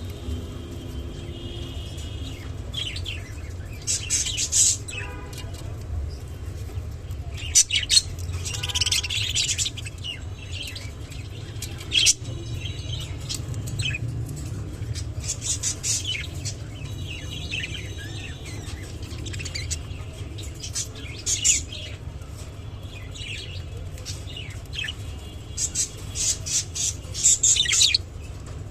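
Clearwing budgerigars chirping and chattering in short, scattered bursts that come thickest in a few clusters, over a steady low hum.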